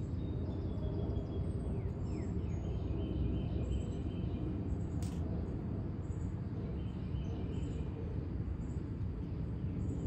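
Steady low outdoor background rumble with faint bird chirps and thin whistled calls coming and going, and one sharp click about five seconds in.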